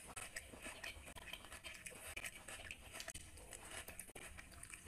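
Close-up chewing of a person eating soft luchi bread with chicken liver curry: irregular small mouth clicks and smacks.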